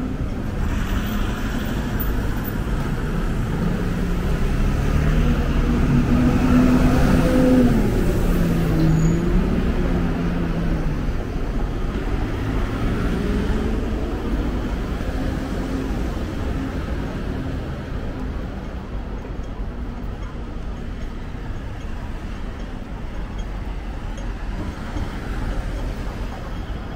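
City street traffic: a steady low hum of road vehicles, with one engine growing louder and changing pitch as it passes about a quarter of the way in, then fading.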